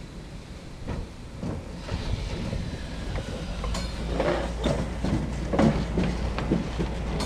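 Several Euro Cargo Rail Class 186 electric locomotives coupled together passing close by, a low rumble growing louder as they near, with wheels clattering on the track from about four seconds in.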